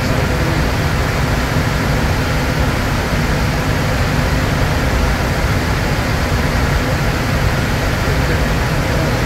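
Steady cockpit noise of a Bombardier Challenger 350 business jet in flight: a low, even rush of air over the fuselage and windscreen mixed with the drone of its twin turbofan engines.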